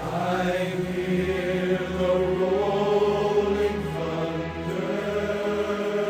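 Slow, ambient background music of layered, sustained tones, with a new chord swelling in at the start.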